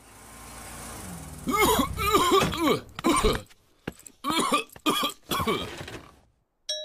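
A voice actor's coughing for a sick cartoon bear, coming in several short fits over a few seconds. The cough is the contagious one that has spread from child to adults to the doctor.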